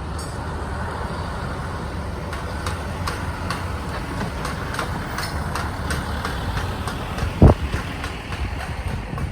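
Hydraulic excavator's diesel engine running steadily while it crushes demolition debris: scattered cracks and clatter throughout, with one loud bang about seven and a half seconds in.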